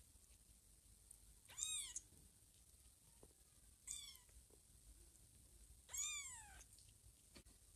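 A young kitten mewing three times: thin, high-pitched calls that each rise and fall in pitch, the second shorter than the other two.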